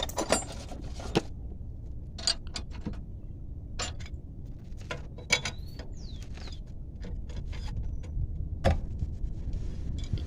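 Hand wrench working on a car's suspension bolts and tie-rod end: scattered metallic clicks and clinks of the tool on the fasteners, with one sharper knock near the end.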